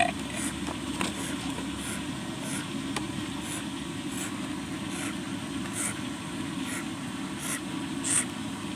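Baby owl giving short, high hissing begging calls, repeated about once or twice a second, over a steady low background hum.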